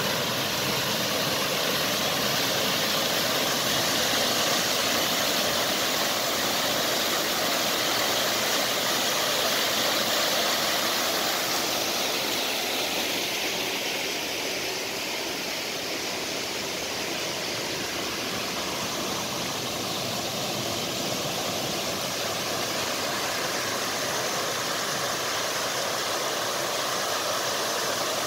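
Spring water pouring over small concrete weirs into a channel: a steady rushing splash that eases a little about halfway through and then comes back up.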